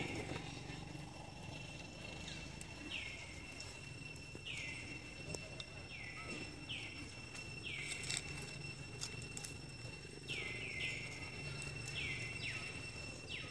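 A series of about ten short, high animal calls, each sliding down in pitch, coming irregularly about once a second, over a steady high thin whine and light rustling in dry leaves.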